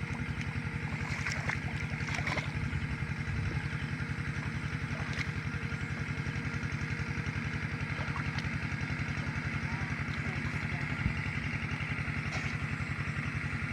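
A small single-cylinder engine running steadily at an even chugging beat.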